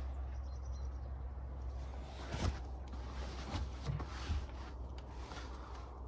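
Handling noise from a handheld camera: a steady low rumble with a few soft knocks and rubs.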